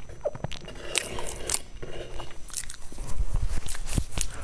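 Close-miked chewing and biting of crunchy, crumbly food, with a series of crisp crunches spread through the stretch.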